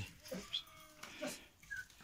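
Mixed flock of sheep and goats bleating faintly, a few short scattered calls.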